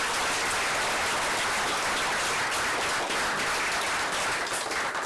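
Applause from a small seated audience, steady and dense, tailing off at the very end.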